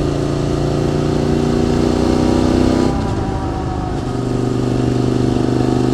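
QJ Motors SVT650X motorcycle engine running through a freshly fitted aftermarket exhaust with an Arrow Racetech silencer, heard while riding. The engine note holds steady, dips and breaks up about three seconds in, then settles into a steady note again.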